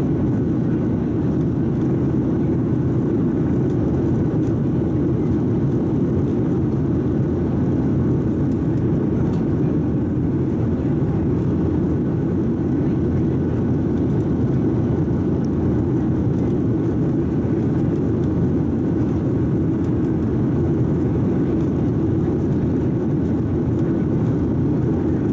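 Steady cabin noise of a Boeing 737-700 climbing out after takeoff: the CFM56 turbofan engines and the rushing airflow make an even, low rumble that does not change.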